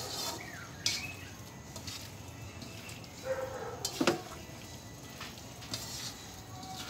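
Spatula stirring sautéed pechay in a wok: soft scraping of leaves against the pan, with a sharp clink about a second in and another about four seconds in. A short animal call sounds faintly about three seconds in.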